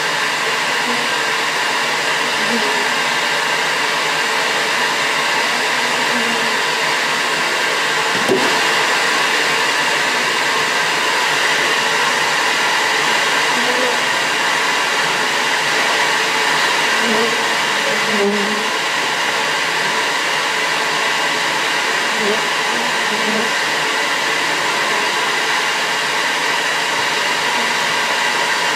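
Bee vacuum's motor running steadily, with a single knock about eight seconds in.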